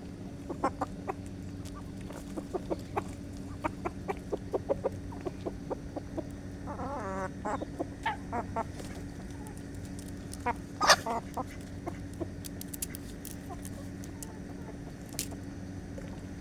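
Chickens clucking: a quick run of short clucks over the first few seconds, a longer wavering call about seven seconds in, and a louder sharp call near eleven seconds, over a steady low hum.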